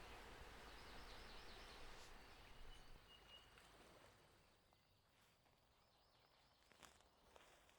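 Faint outdoor nature ambience: a soft, even wash with a few faint bird chirps, fading away after about four seconds. A couple of light taps come near the end.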